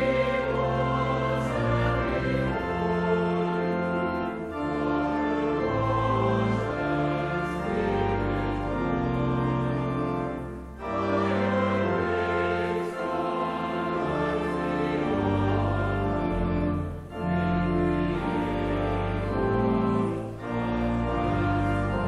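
Pipe organ accompanying a congregation singing a hymn in long held notes, with brief breaks between the sung lines about every six seconds.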